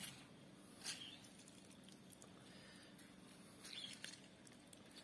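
Near silence, with a few faint, soft squelching sounds about a second in and again near four seconds: a half lemon being squeezed by hand.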